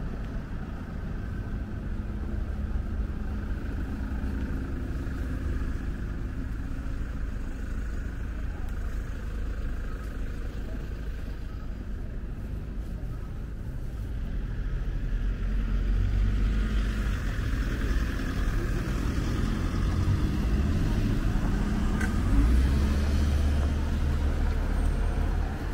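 City street traffic: cars passing with a steady low rumble that grows louder about halfway through.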